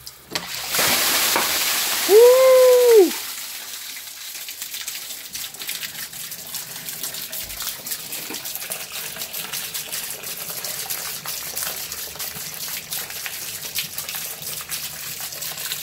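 Sewage under pressure bursting out of a PVC drain cleanout as its plug comes off: a loud spray about a second in, then a steady rushing flow down the stack. The pressure is from a blocked drain line backed up behind the cleanout. A person cries out over the burst.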